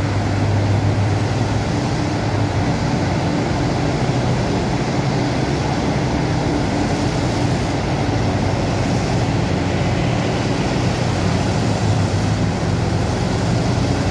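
Liebherr 996 and Hitachi 5500 mining excavators loading haul trucks, their engines and the trucks' engines running together as one steady deep drone without a break.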